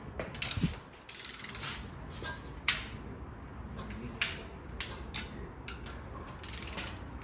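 Ratchet clicking as its handle is swung back and forth to turn the cylinder head bolts of an LY5 5.3L V8 through the 90-degree angle-torque step. A quick run of clicks comes about a second in, then single sharp metallic clicks and clanks at uneven intervals.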